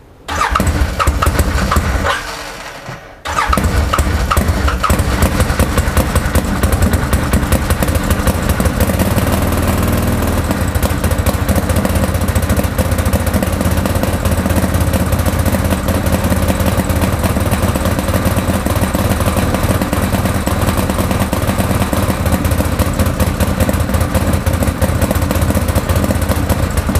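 Arctic Cat Wildcat 1000 X side-by-side's 951 cc V-twin engine starting, sagging and nearly dying about two seconds in, then picking up again about three seconds in and running steadily with the throttle held. It will not idle and runs as if missing on one cylinder, even with new spark plugs and fresh fuel.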